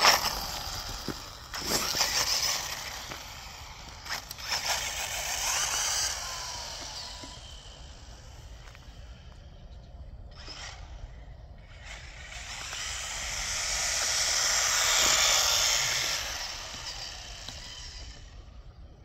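HBX Haiboxing 16890SA 1/16-scale electric RC truck on a 3S battery making a full-throttle speed run on asphalt: electric motor whine and tyre hiss. The sound dies down after the first few seconds, then grows to its loudest about three quarters of the way through before fading.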